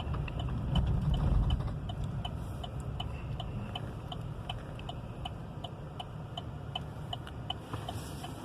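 A car's turn-signal indicator ticking at a steady, even rate inside the cabin, over the low rumble of the Suburban's engine as the vehicle pulls over and idles at the roadside.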